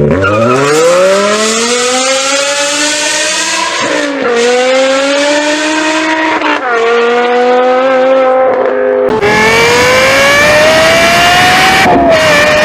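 V10 supercar engines accelerating hard through the gears: the engine note climbs and drops sharply at each upshift, twice in the first car, then a second car climbs and shifts once near the end.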